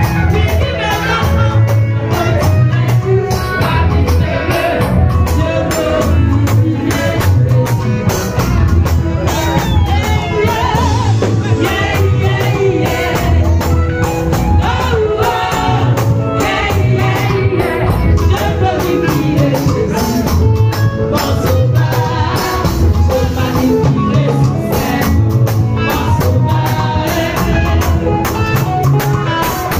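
Women singing a lively gospel song into microphones over music with a steady repeating bass line and shaking percussion.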